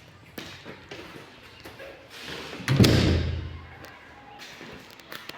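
A single heavy thud about two and a half seconds in, its low rumble dying away over about a second, with a few light clicks and knocks around it.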